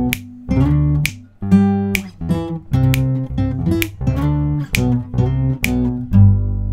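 Acoustic guitar music: chords strummed at about two a second, ending on a chord that is left ringing near the end.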